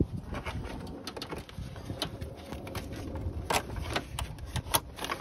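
Irregular clicks and scrapes of pliers working a spring compression clamp off a radiator hose, over a low background rumble.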